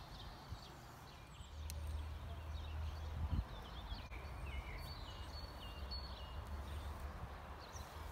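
Garden birds chirping in short, repeated high calls over a low outdoor rumble, with a faint click or two and a brief thump about three seconds in.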